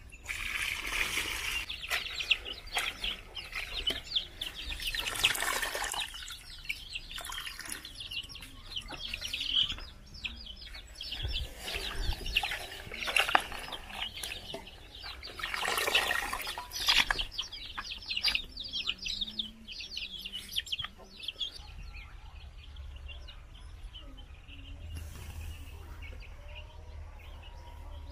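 Water poured from a basin over chopped leafy greens in an aluminium pot, then hands swishing and squeezing the wet leaves in the water, with splashes and a few louder pours. It goes quieter for the last several seconds.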